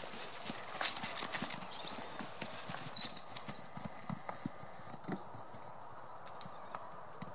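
Horses' hooves thudding on grass turf as they trot, an irregular patter of hoofbeats that thins out after about four seconds.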